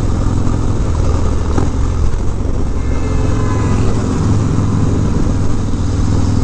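Harley-Davidson Dyna's V-twin engine running steadily under way at cruising speed, through a Bassani Road Rage 3 exhaust.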